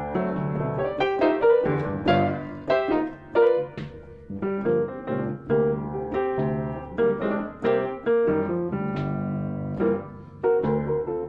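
Solo piano played with both hands: chords in the left hand under a moving right-hand melody, with many notes struck in quick succession, in an improvised jam.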